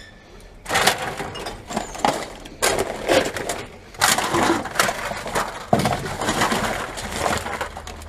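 Plastic bags, wrappers and takeaway cups crinkling and rustling as a gloved hand rummages through rubbish in a bin. It starts under a second in and carries on with several sharper rattles and knocks.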